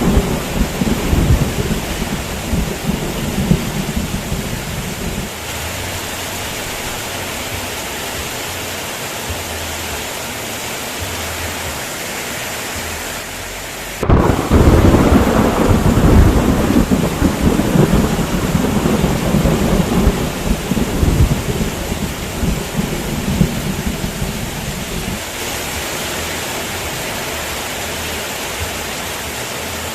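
Heavy rain falling steadily, with thunder rumbling at first and fading out within a few seconds. About halfway through, a sudden loud thunderclap breaks in and rumbles on for about ten seconds before the rain is left alone.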